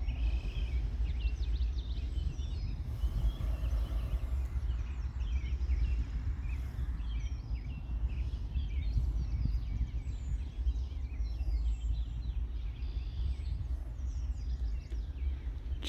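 Marsh birds chirping and calling in many short, scattered calls, over a steady low rumble of wind on the microphone.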